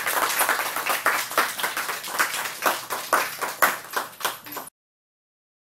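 A small audience applauding, a dense patter of hand claps that cuts off suddenly a little over four and a half seconds in.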